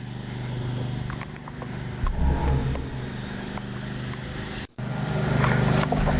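An engine running steadily, broken off briefly about four and a half seconds in.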